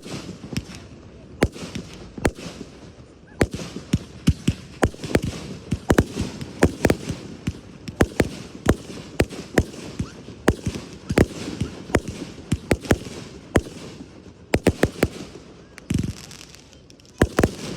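Fireworks display going off: a rapid, irregular string of sharp bangs, several a second, with a short lull a little before the end.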